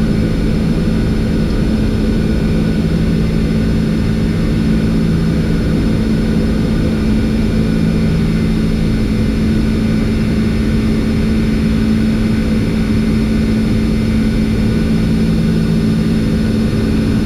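Steady cockpit noise of a Boeing 747-400 in its initial climb after takeoff: engine and airflow noise with a steady low hum.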